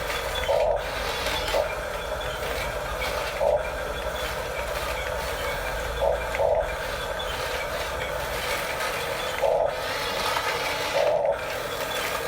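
Small electric motors and plastic gearboxes of a Huina 1569 RC toy bulldozer running with a steady grinding whirr, with short louder bursts every second or two as it drives and pushes.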